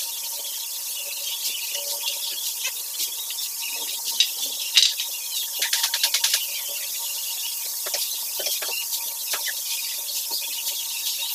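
Birds and insects chirping steadily, with scattered light clicks and knocks as wooden boards and tools are handled, including a quick run of clicks about six seconds in.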